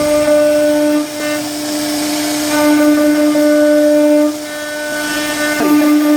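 CNC router spindle whining steadily at a constant pitch while carving wood, the whine growing louder and fuller in stretches as the bit bites into the wood and easing in between.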